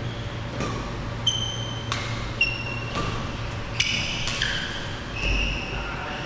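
Badminton rackets striking a shuttlecock in a fast rally, a sharp crack roughly every second, with court shoes squeaking briefly on the synthetic court mat between shots.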